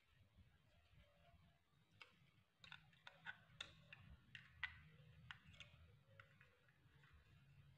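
Faint, irregular clicks and taps of plastic toy-truck parts being handled, most of them in the middle of the stretch.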